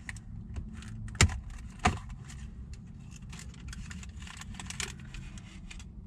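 Plastic cup and paper receipt rattling, clicking and rustling as the cup is worked loose from a car's cup holder, with two sharp plastic snaps, about one and two seconds in.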